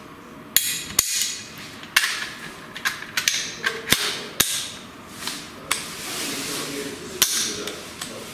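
Sharp metal clicks and clacks of a Diamondback DB15 AR-15 rifle being handled as it goes back together: the upper receiver is closed onto the lower and parts of the action are worked. There are six or seven hard snaps spread out over several seconds, with sliding and rustling of handling in between.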